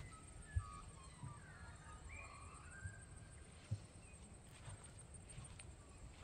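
Soft footsteps at a slow walking pace, with a bird calling in a run of short chirps and warbles during the first half.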